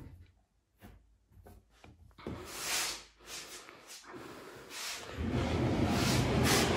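A large chipboard panel being handled and shifted: a few light knocks, then rubbing and scraping that grows louder and stays up for the last couple of seconds.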